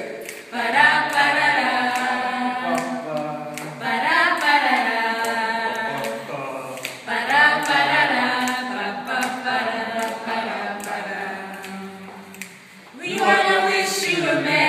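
Small mixed a cappella choir of women's and a man's voices singing in harmony with no instruments, in sustained phrases a few seconds long with brief breaths between them.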